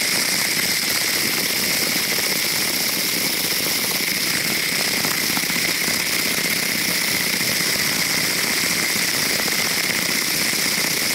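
Tumbler running steadily, polishing a silver coin in wet media: a constant mechanical whirring rattle that does not change.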